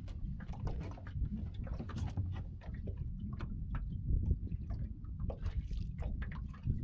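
Low wind rumble and water lapping around a small fishing boat, with scattered light clicks and knocks.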